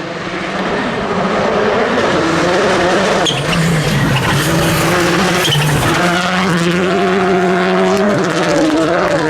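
Turbocharged rally car engine at full attack on a gravel stage, pitch climbing and dropping several times with gear changes and lifts, getting louder over the first couple of seconds as the car comes closer.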